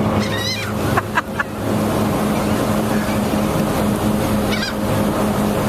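Gulls calling in short wavering cries, a few near the start and again near the end, over the steady drone of the ferry's engine.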